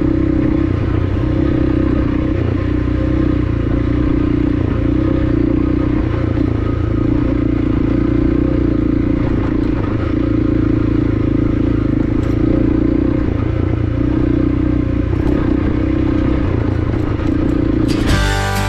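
Honda CRF300L dual-sport motorcycle's single-cylinder engine running steadily while the bike rides along a gravel dirt track, with loose stones clattering under the tyres. Guitar music cuts in just before the end.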